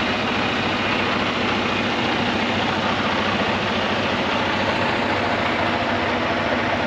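Freightliner Cascadia semi-truck's diesel engine idling steadily with an even low throb.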